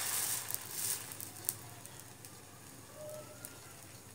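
Buttered sandwich sizzling on a hot tawa (flat griddle): a loud hiss as the bread meets the pan that dies down after about a second, then a quieter sizzle with scattered crackles.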